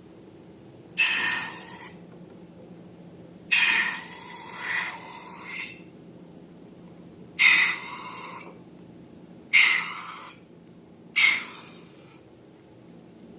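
Slime and balloons being squeezed and handled: five short, sudden hissing squelches, the second one longer and broken, over a faint steady low hum.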